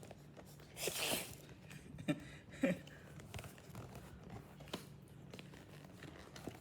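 Handling of an opened smartwatch box and its packaging: a short rustle about a second in, then a few light knocks and clicks as the contents are handled.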